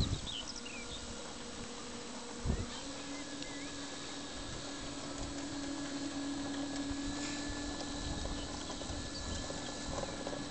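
Radio-controlled Extra 300 model aerobatic plane's engine running steadily at one pitch as it taxis along a grass strip. Two dull thumps, at the start and about two and a half seconds in, are the loudest sounds.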